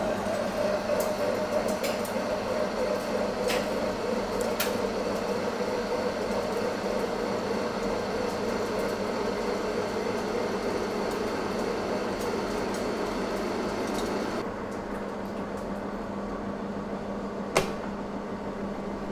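Monarch engine lathe running under a low steady hum while its cutting tool faces off the end of a 1045 steel shaft bar: a steady cutting noise with a tone that slowly drops in pitch as the cut goes on. The cutting noise stops about fourteen seconds in, leaving the lathe's hum, and a few sharp ticks break in, with one louder click near the end.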